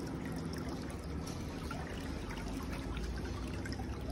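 Water running and trickling in a pedicure chair's spa basin, steady throughout, over a faint steady low hum.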